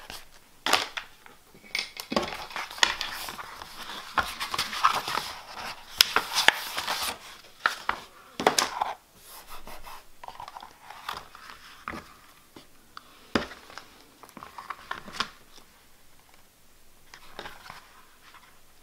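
Handling noise from leather traveler's notebook covers and their paper inserts and plastic pocket sleeves on a table: rustling and crinkling with scattered light knocks and taps, busiest in the first half.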